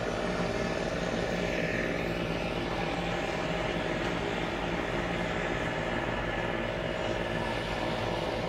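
A boat engine drones steadily, with a constant hum and no change in pitch or level, heard from on board a moving houseboat.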